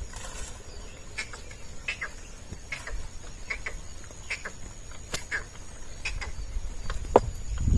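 Field ambience: a steady, high insect drone like a cricket's, with short bird chirps scattered throughout and a sharp click near the end.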